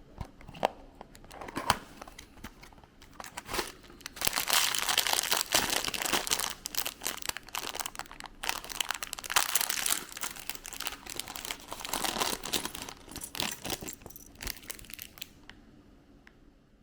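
Packaging being crinkled and torn open in handfuls, with a few light clicks in the first seconds, then dense crinkling from about four seconds in that dies away near the end.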